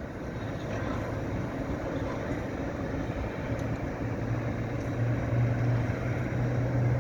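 A train running at a station platform: a steady rumble with a low engine or motor hum that grows louder about halfway through.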